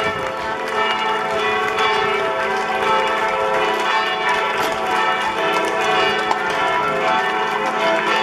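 Church bells pealing, several bells ringing together without a break in a dense, overlapping peal.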